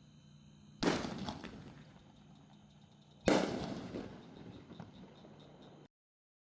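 Two loud aerial firework shell bursts about two and a half seconds apart, each a sharp bang that echoes away over a second or so; the sound cuts off abruptly near the end.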